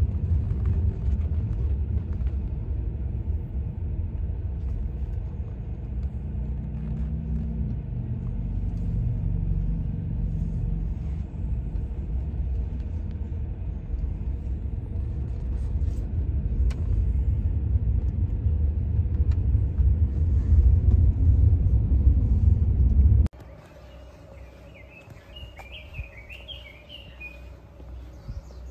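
Steady low road rumble inside a moving car's cabin, which cuts off suddenly about 23 seconds in. A quiet outdoor ambience follows, with a bird chirping in a quick run of notes.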